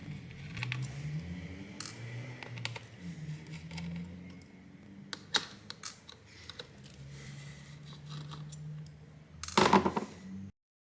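Small clicks and taps from hands and tools working on the open laptop's internal cable connectors, with one louder clatter near the end before the sound cuts off abruptly.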